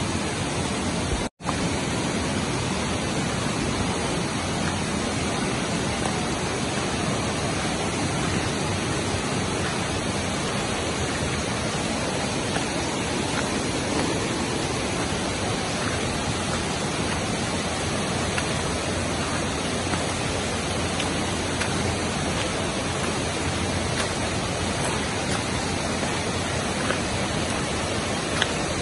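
Steady rushing of a river running high and fast after heavy rain upstream, an even unbroken roar of water, with a momentary dropout about a second in.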